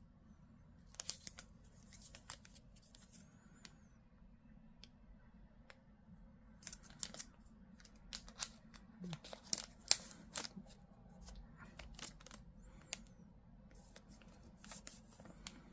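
Faint, scattered clicks and crinkly rustles of packaging and the statue being handled, in short clusters about a second in, through the middle, and near the end, over a steady low background hum.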